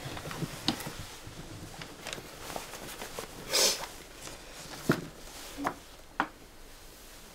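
Close handling sounds of a person moving about: clothing rustling and light taps and clicks, with a short swish about three and a half seconds in and two sharp clicks near the end.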